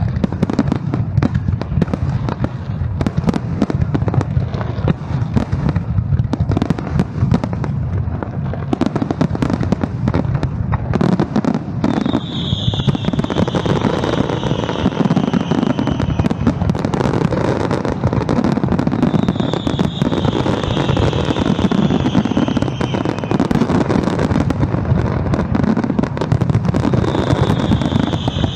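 Aerial fireworks bursting in a dense, continuous barrage of bangs and crackle over a deep rumble. From about halfway, a high, slightly falling tone rises over the barrage three times.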